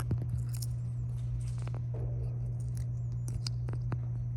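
Razor blade scraping hardened windshield-repair resin off the glass: a string of short, irregular scratchy clicks and scrapes, over a steady low hum.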